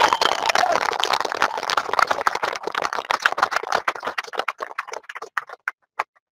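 Small crowd clapping, the applause thinning to a few scattered claps and stopping near the end.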